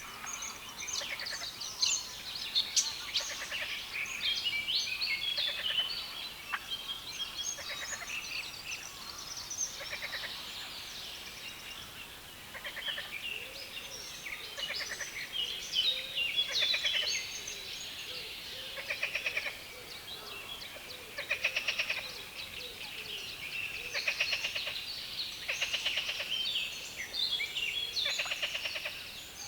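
Birds singing in a reedbed: several overlapping songs made of fast strings of repeated high notes, coming in bouts of a few seconds with no real pause.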